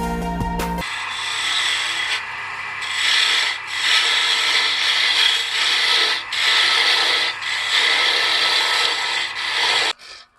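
Hais electric scroll saw cutting through a thick block of kiln-dried beech: a steady rasping over a low motor hum, easing briefly a few times as the cut slows, and stopping just before the end.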